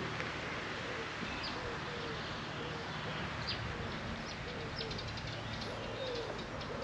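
Pigeons cooing in short, repeated low calls, with small songbirds chirping higher up, over a steady outdoor hiss.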